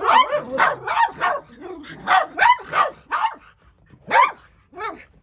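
Small dogs barking repeatedly in play, a rapid run of short barks at first, then fewer and more spaced out in the second half.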